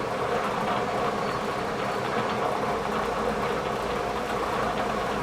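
Bridgeport milling machine running: a steady mechanical hum carrying one constant tone, as the machine moves its table into position for the slot.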